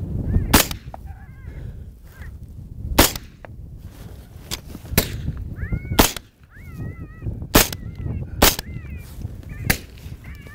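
A volley of rifle shots at running coyotes, five loud cracks over about eight seconds with a few fainter ones between. Short wavering high-pitched calls sound between the shots, over low wind noise.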